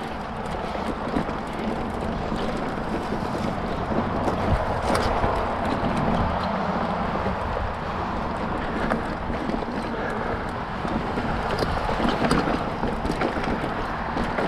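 Hardtail mountain bike rolling along a dirt trail: a steady rush of tyre noise with scattered clicks and rattles from the bike over roots and bumps, and wind on the camera microphone.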